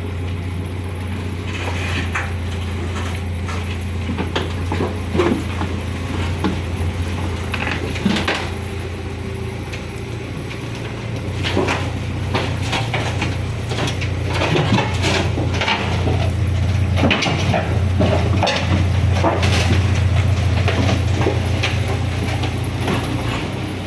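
Excavator's diesel engine running steadily, with repeated metallic clanks and knocks from the machine at work; it grows louder about halfway through.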